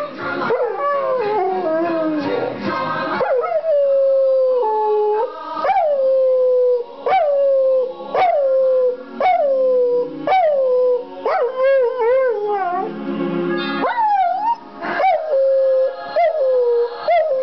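Chocolate Labrador retriever howling along to music, a long run of short howls about one a second, each swooping up and then settling on a held note. Music plays under the howling in the first few seconds.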